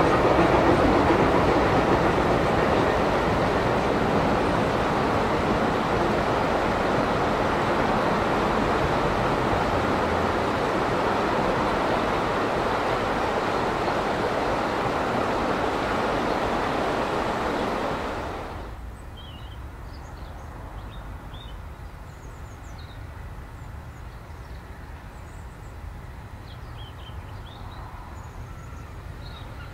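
Narrow-gauge steam train running past, a steady rumbling rail noise that eases slightly and then stops abruptly about two-thirds of the way through. After that, a quieter outdoor background with small birds chirping.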